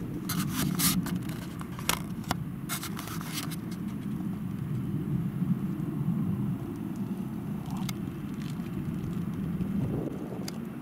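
Camera handling: a run of clicks and knocks in the first few seconds as the camera is swung round and zoomed, then one more click near the end. Under it, a steady low rumble of wind on the microphone.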